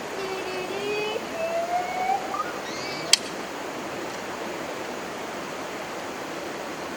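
Steady rushing of river water. A voice is heard over it for the first two seconds or so, and there is one sharp click about three seconds in.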